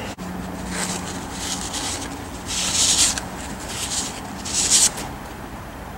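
About five short, scratchy rubbing strokes as a freshly cut valve seat in a Jeep 4.0 cylinder head is wiped clean by hand, clearing the cutting debris.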